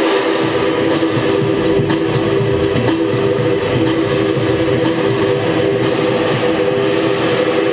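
Electronic dance music from a DJ set mixed on Pioneer gear, played loud through club speakers: a sustained chord holds steady in the middle register over a bass line.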